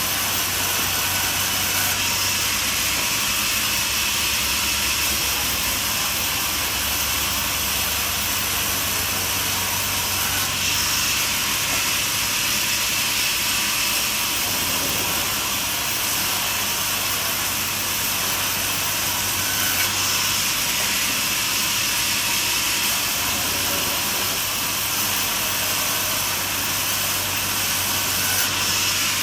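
Portable band sawmill running steadily as its blade saws a log into boards: a constant, even noise, strongest in the high range.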